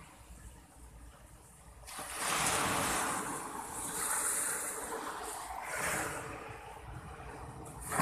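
Sea surf breaking and washing up a sandy beach. It is faint at first, then swells in surges from about two seconds in, easing off near the end.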